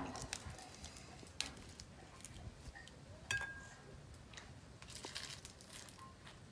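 Quiet sounds of eating by hand: fresh lettuce leaves crinkling as they are wrapped around grilled beef, with a few scattered sharp clicks and soft rustles.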